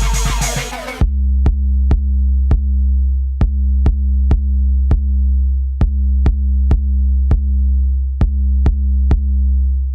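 Electronic music: after a busy first second, a deep held bass note under a sharp clicking drum-machine beat about twice a second, fading out near the end.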